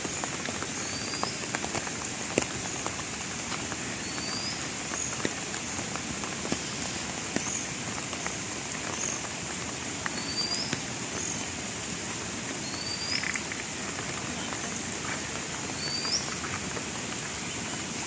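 Heavy monsoon rain falling on floodwater: a steady hiss with scattered drop ticks. Over it are a steady high-pitched whine and a short rising chirp that repeats every few seconds.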